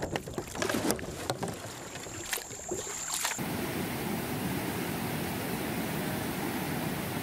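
A few sharp clicks and knocks from a kayak. About three seconds in, the sound cuts to the steady, heavy rush of fast brown floodwater pouring across a road.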